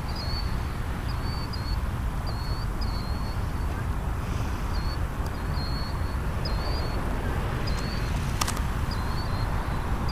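Jet engines of a McDonnell Douglas MD-80 at takeoff power, a steady low rumble as the airliner rolls down the runway and lifts off. A small bird chirps about once a second, with a single click near the end.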